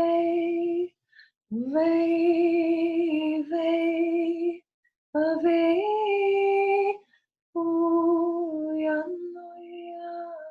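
A woman's voice singing long wordless sacred tones: four held notes separated by short silences. The second slides up into its note, the third steps up in pitch partway through, and the last fades lower near the end.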